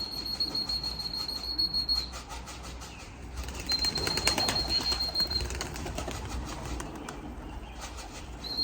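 Racing pigeons flapping their wings as they come in to land at the loft. A flat, high, steady tone sounds three times, each time for a second or two.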